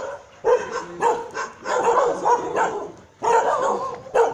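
Dogs barking in short, repeated bursts.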